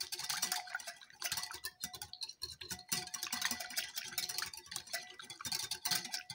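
Wire whisk beating olive oil in a glass bowl: rapid, continuous clinking of the metal tines against the glass.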